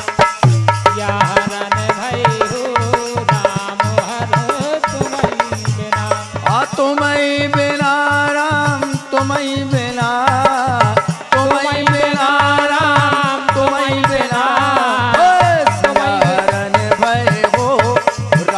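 Instrumental interlude of a Bundeli devotional folk song: drums beating a fast, driving rhythm, joined partway through by a wavering melodic line.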